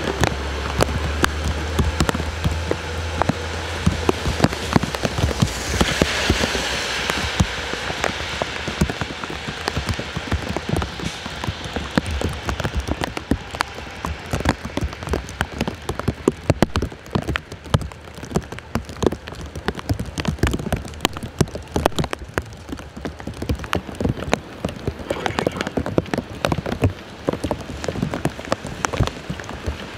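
Steady rain falling on a wet city street, with many sharp individual drop hits close to the microphone. A city bus passes at the start with a low engine rumble that fades out about four seconds in, and a wash of tyre hiss on the wet road follows around six seconds in.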